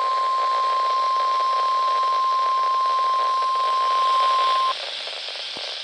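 NOAA Weather Radio warning alarm tone: one steady, unbroken beep over the receiver's hiss, the alert that comes before a warning is read out. It cuts off suddenly near the end, leaving only the radio hiss.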